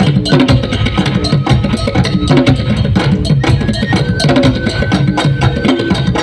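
Traditional African drum and percussion music: a fast, dense, steady beat of drums with sharp wood-block-like knocks.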